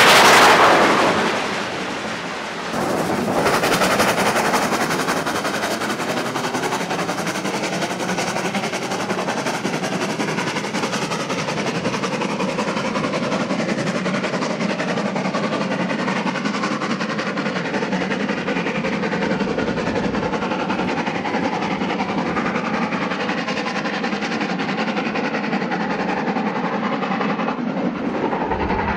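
LMS Jubilee three-cylinder 4-6-0 steam locomotive working flat out up a steep bank: its rapid exhaust beats are loudest in the first second as it passes. The lit coaches then rumble and clatter over the rail joints, a steady train sound that goes on after the engine has gone by.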